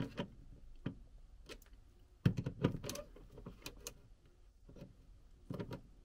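Screwdriver driving small screws into a plastic fridge door-switch housing: scattered light clicks and scrapes, busiest from about two seconds in, with a few more near the end.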